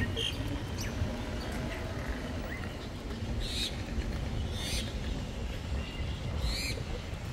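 Birds calling over a steady low background rumble: a few faint thin chirps and three short, harsh, raspy calls a second or two apart.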